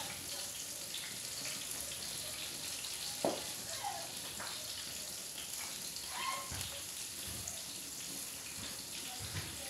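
Steady frying sizzle from food in a pan on a gas stove, with a single sharp click about three seconds in.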